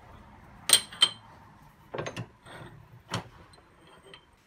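Flat steel plates being set down and shifted on the jaws of a cast-iron Record bench vice: a few sharp, ringing metal clinks and knocks. The two loudest come about three-quarters of a second and a second in, with more a second later and another just after three seconds.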